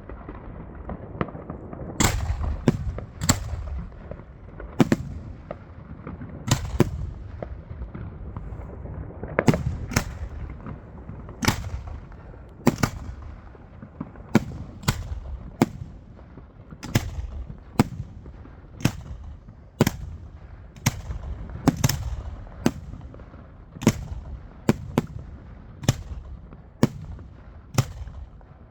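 Fireworks going off: a long run of sharp bangs, unevenly spaced at about one a second, over a low rumble.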